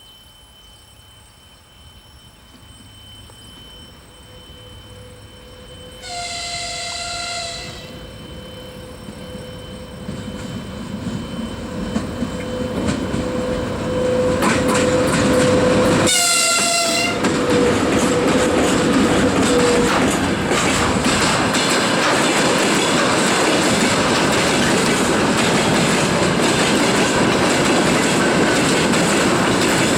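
VL80S electric locomotive with a freight train: its horn sounds once about six seconds in and again, louder, about sixteen seconds in as it comes by. The train's rolling noise builds up and then holds steady and loud as the wagons pass over the rails.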